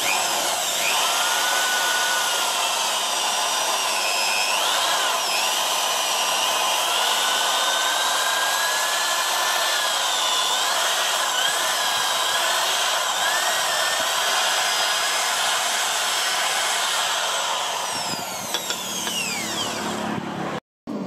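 Cordless power drill boring into a bamboo knife handle, the motor's whine wavering in pitch as the bit bites into the wood. Near the end the motor winds down with a falling whine.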